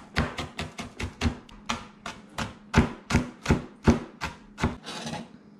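Chef's knife finely dicing half a seeded jalapeño on a plastic cutting board: a quick, steady run of knife strikes, about four a second.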